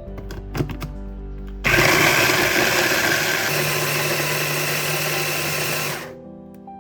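A small electric kitchen appliance motor runs loudly for about four seconds, starting abruptly a little over a second and a half in and cutting off near the end. A few sharp clicks come just before it starts, and soft background music plays throughout.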